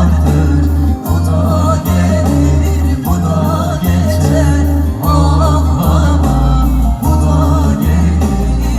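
Music: a singer's wavering melody over a heavy, pulsing bass line.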